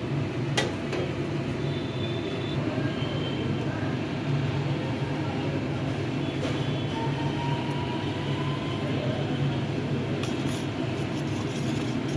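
Steady low background hum, with a few light clinks of a steel spoon against a small steel bowl as flour is stirred into broth to make a paste.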